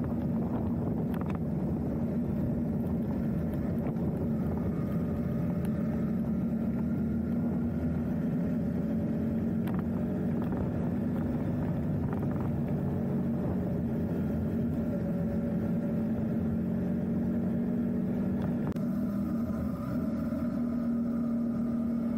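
A vehicle engine running steadily: a constant drone whose pitch drifts slightly.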